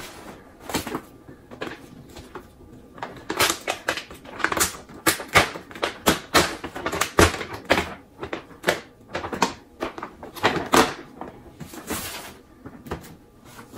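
Paper gift bag crinkling and rustling in a series of irregular crackles as it is handled and gifts are taken out of it.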